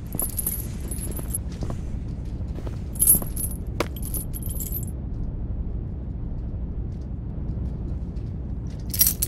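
A bunch of keys jangling in short bursts: at the start, again about three seconds in with a sharp click among them, and once more just before the end, over a steady low rumble.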